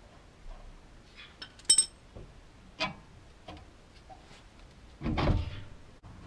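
Metal tools and suspension parts clinking and knocking during hand work at a car's front hub: a few sharp metallic clinks, one ringing briefly, then a louder clattering knock near the end.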